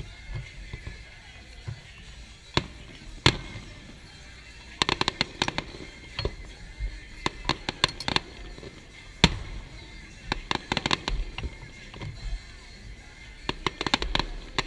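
Fireworks display: single loud shell bursts a few seconds apart, mixed with quick salvos of crackling reports.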